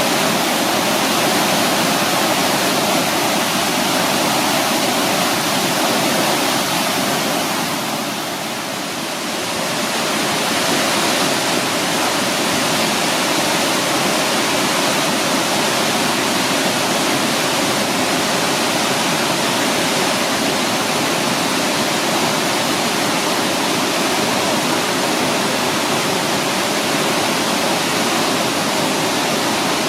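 Victoria Falls' falling water, a steady, loud rushing roar that dips briefly about eight seconds in.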